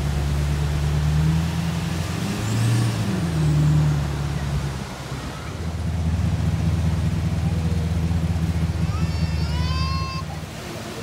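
A pickup truck engine running at low revs as the truck drives slowly on sand, with one brief rise and fall in engine pitch about two to three seconds in. Near the end there is a short, high, wavering sound.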